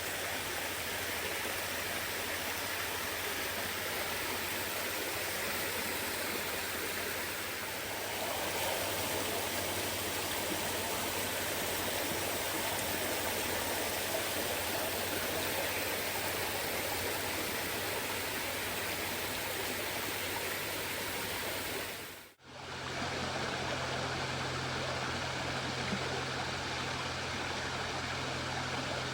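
Steady rushing of water spilling down a pool's waterfalls. About 22 seconds in it cuts off abruptly, and a similar steady water noise resumes with a low hum underneath.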